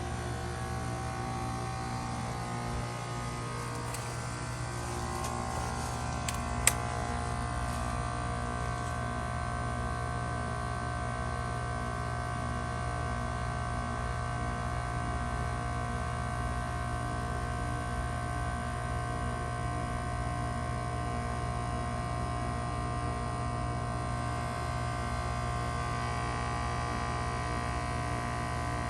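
Lennox Merit heat pump outdoor unit running with a steady hum and several steady tones during its defrost cycle. About six to seven seconds in there is a brief hiss and one sharp click, after which the tones settle at a slightly different pitch.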